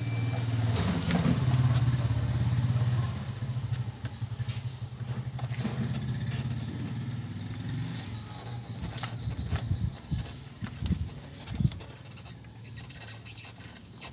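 A motor vehicle engine running nearby: a steady low drone, loudest in the first few seconds, that turns into a fast chugging pulse and fades away. A bird chirps in the middle, and a few light knocks come near the end.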